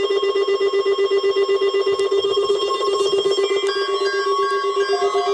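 A loud electronic alarm tone, steady in pitch and pulsing rapidly. Short repeated musical notes join it about four seconds in.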